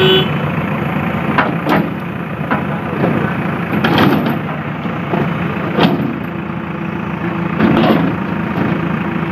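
Heavy vehicle engine running steadily, with a handful of sharp knocks or clanks at irregular moments over it.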